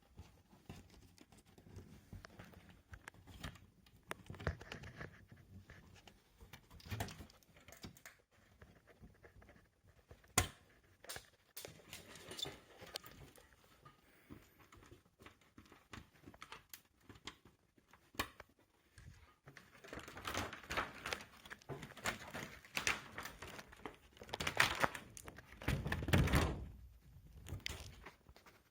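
Handling noises as LED backlight strips and their packaging are handled: plastic crinkling and rustling with scattered light knocks and clicks, one sharp click about ten seconds in, and busier, louder rustling in the last third.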